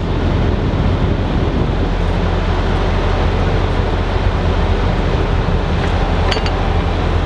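Engine of a piece of heavy equipment running steadily, with a deep, even hum. A couple of faint clicks come about six seconds in.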